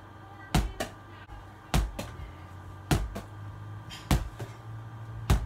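A small ball thrown against a wall and caught, over and over: five sharp thuds about a second and a quarter apart, each with a fainter slap just after it.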